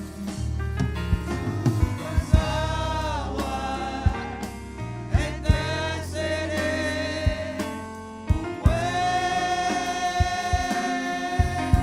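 Gospel worship song: a singer holds long notes with vibrato, one held for nearly three seconds near the end, over bass and drums.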